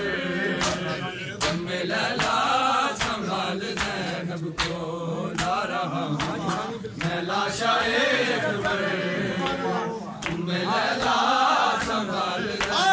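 A group of men chanting an Urdu noha lament, with rhythmic chest-beating (matam) slaps about once every three-quarters of a second.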